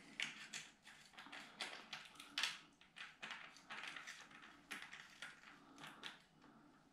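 Faint, irregular clicks and taps of a hex key working the clamp bolt of a Magura MT7 brake lever on a mountain-bike handlebar, snugging it just enough to hold the lever in position.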